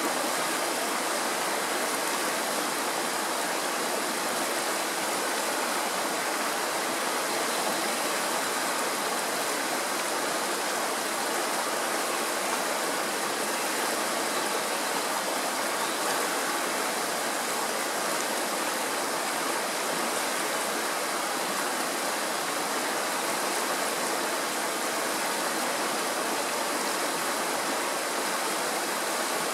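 Shallow mountain stream rushing over rocks in white-water riffles: a steady, even rush of water.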